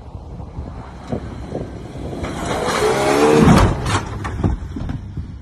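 A lifted 4x4 on oversized mud tyres accelerating hard past at close range, wheels spinning in loose dirt. The engine gets louder as it nears, is loudest about three and a half seconds in with its note dropping in pitch as it goes by, then fades away.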